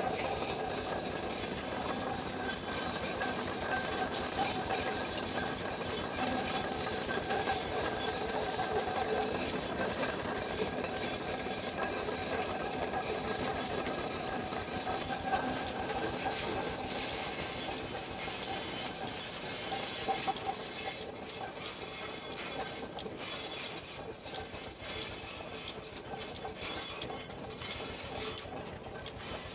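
Concrete pipe-spinning machine running with a steady, fast mechanical rattle, a little quieter in the last third.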